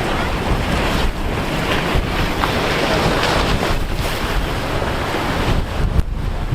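Wind buffeting the microphone over a steady rush of surf and breaking waves.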